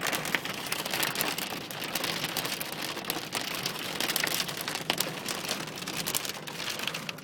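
Storm-driven rain and mud pelting a stopped van's body and windows, heard from inside the cabin: a dense, uneven patter of small hits over a steady rush of wind.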